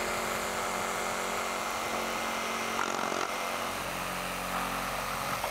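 Cordless reciprocating saw running steadily as it cuts out a rotted wooden porch-column base.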